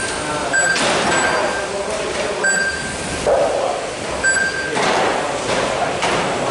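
GT12 1/12-scale electric RC race cars running on a carpet track. About four short, high electronic beeps come from the lap-timing system as cars cross the timing line.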